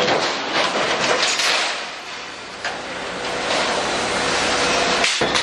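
Sheet-metal shop noise from a guillotine plate shear working steel sheet: irregular metal clattering over a steady machine hum.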